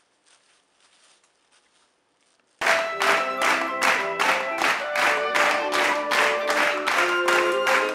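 A plastic bag rustling faintly. About two and a half seconds in, music cuts in abruptly with a fast, steady beat, about three strokes a second, under a melody.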